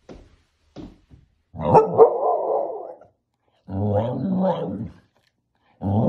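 A Samoyed vocalizing in three drawn-out, wavering bouts, protesting as its person gets ready to go out. A few faint clicks come before the first bout.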